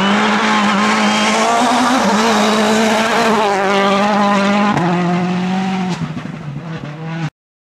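Rally car engine running hard at high revs, its pitch holding steady and then stepping up and down a few times. The sound cuts off abruptly near the end.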